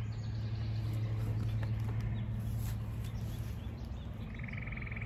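Outdoor ambience: a steady low hum that fades after about three and a half seconds, and a bird's high buzzing trill near the end.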